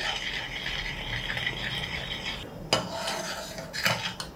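A spoon stirring and scraping in a pot as ground poppy-seed paste is mixed into jaggery syrup for payasam. The scraping stops about halfway through, followed by two knocks of the spoon against the pot.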